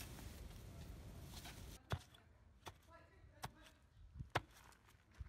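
Soil being dug by hand: a few sharp separate knocks and scrapes at uneven spacing, the loudest about two seconds in, over quiet outdoor background.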